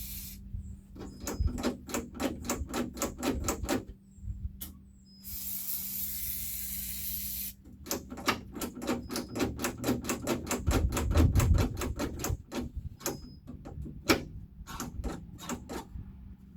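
Runs of rapid, evenly spaced ratcheting clicks, about eight to ten a second, from hand work inside a Jeep door, broken near the middle by a steady hiss lasting about two seconds.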